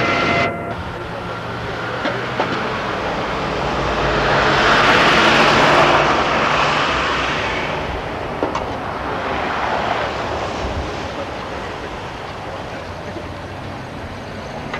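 A vehicle driving past on a street, its noise swelling to a peak about five seconds in and then slowly fading, over a steady low engine hum.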